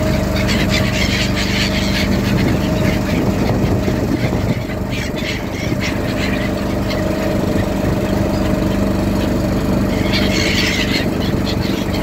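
A boat's motor running at a steady pitch, with a few short bursts of higher sound on top: about a second in, around five seconds in, and near the end.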